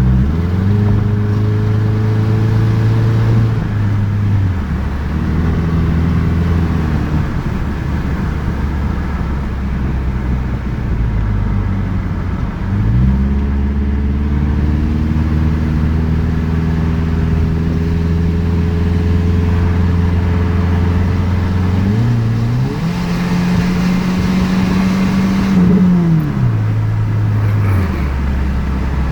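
A 2004 Subaru Forester XS's 2.5-litre flat-four engine running, revved between several steady engine speeds: it drops about four seconds in, rises again around twelve seconds, is highest from about twenty-two seconds on, then falls back near the end. The engine is being tested for an intermittent stumble and misfire.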